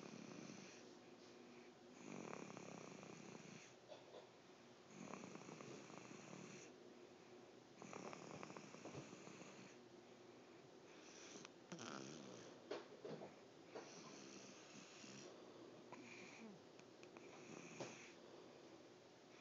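A sleeping person snoring faintly, one rattling snore roughly every three seconds.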